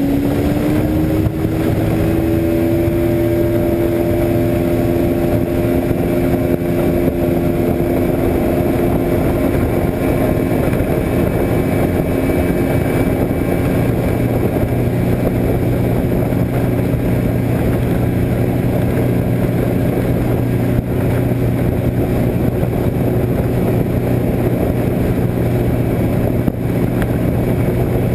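Motorboat's outboard engine running at speed. Its pitch rises slightly in the first two seconds, then holds steady under a constant rush of wind and water.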